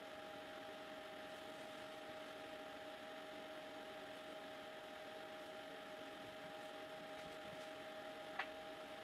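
Steady low hum with a thin constant whine, broken once near the end by a single short, sharp click.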